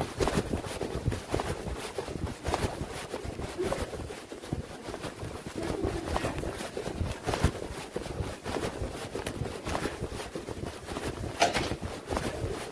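Footsteps with rustling handling noise: irregular knocks and clicks, a few sharper ones near the end.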